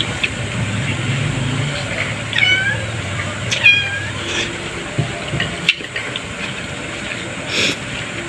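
A cat meowing twice, two short bending calls a little over a second apart.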